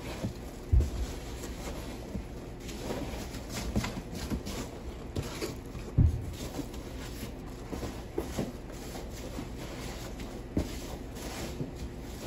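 Hands rummaging through loose packing peanuts and handling a cardboard box, with irregular rustling and scraping. Two low thumps stand out, about a second in and about six seconds in.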